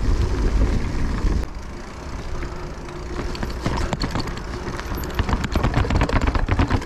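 Mountain bike being ridden over a root-covered trail: the bike rattles and clatters over the bumps against a heavy low rumble of wind on the microphone. The level dips about a second and a half in, and the clattering grows dense in the second half.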